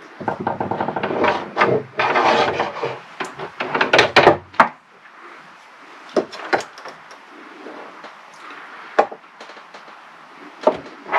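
Tools and metal hardware being handled against a wooden box: dense clattering and rubbing for the first four or five seconds, then quieter, with a few sharp metal clicks as a cable's ring terminal and bolt are fitted at the battery post.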